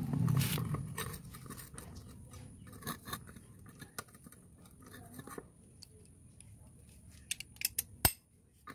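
Light metal clicks and taps of a T-handle box spanner working the nuts on a motorcycle's rear sprocket, with a sharper knock near the end. A low rumble fills the first second.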